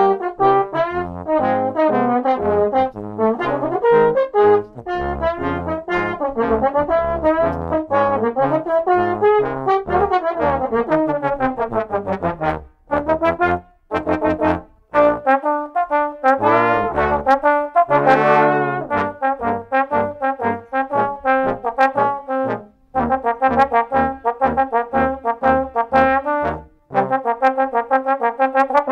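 Trombone quartet, three tenor trombones and a bass trombone, playing a song arrangement in harmony, with quick separate notes and a few brief breaks.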